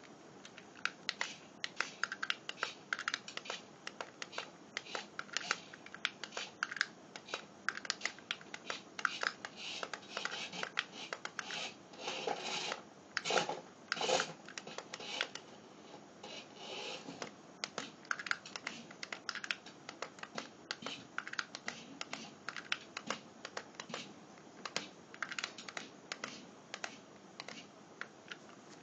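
Light irregular plastic clicks and taps, a few a second, from micro RC trucks running over a styrofoam test track and its obstacles, with a denser scratchy rattle about halfway through.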